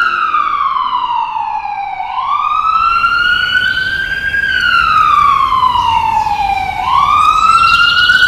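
Emergency vehicle siren wailing loudly: its tone slides slowly down over about two seconds, then sweeps quickly back up, twice over.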